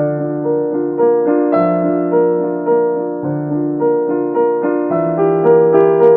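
Background music: a piano melody of evenly spaced notes, about two a second.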